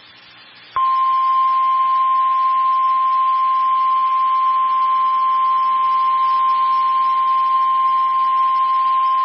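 National Weather Service 1050 Hz warning alarm tone of an Emergency Alert System broadcast, sounding the start of a flash flood warning. A single steady, loud high tone starts abruptly about a second in over a faint hiss and holds unchanged.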